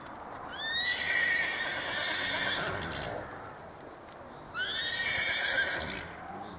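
A horse whinnying twice: a long call of about two and a half seconds, then a shorter one of about a second and a half, each opening with a quick rise in pitch.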